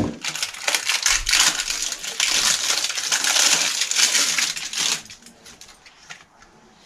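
A sharp knock, then plastic packaging crinkling and rustling as small bicycle parts are unwrapped, stopping about five seconds in.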